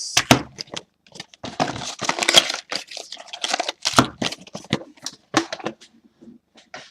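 Plastic and foil trading-card packaging being handled and torn open: irregular crinkling, crackling and tearing with many short sharp clicks.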